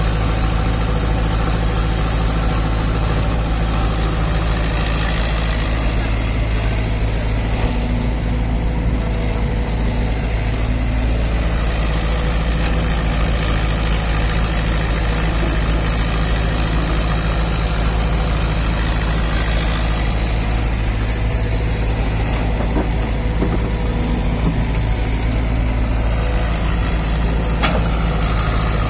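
Hitachi crawler excavator's diesel engine running steadily while the machine digs and loads soil.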